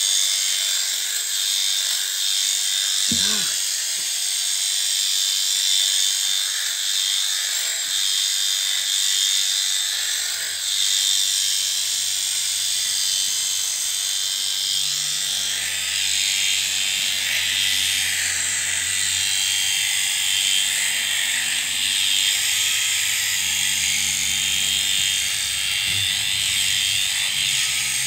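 Electric sheep-shearing handpiece running steadily as it cuts the fleece off a ram lamb, a continuous high-pitched buzz with a lower hum joining about halfway in.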